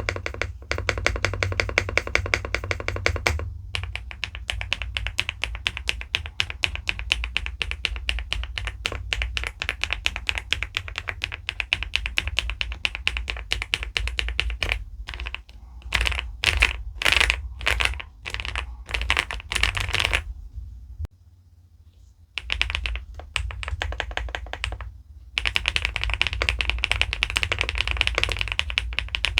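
Fast typing on an SPM PL87W mechanical keyboard with pebble-style keycaps: dense runs of rapid key clicks. Around two-thirds through come a few separate heavier bursts, then a brief pause, then fast typing again.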